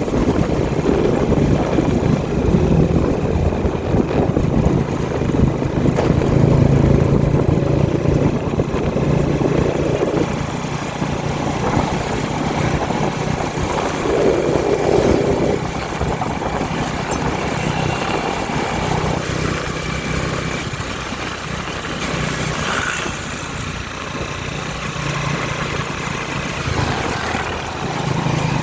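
A vehicle engine running with steady road noise while driving, its low hum rising and falling a little in level.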